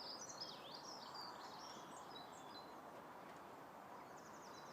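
Faint birdsong over a steady low hiss of outdoor background: a run of short, high chirps and whistles in the first couple of seconds, then a quick trill near the end.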